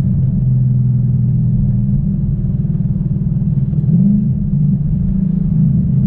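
2014 Mustang GT's 5.0 L V8 engine running steadily with a low rumble while the car is driven, its pitch rising briefly about four seconds in.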